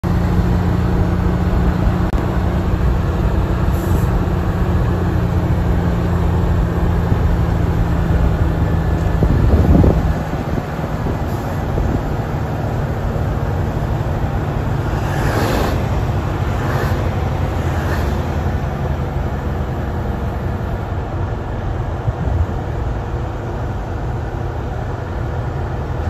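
Vehicle engine and road noise heard from inside a moving vehicle: a steady low drone. About ten seconds in there is a short rising whine, and then the drone carries on a little quieter.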